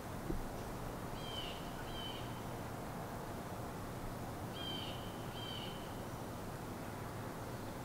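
A bird calling: two pairs of short, high calls, about a second and a half in and again near five seconds, over a steady background hiss.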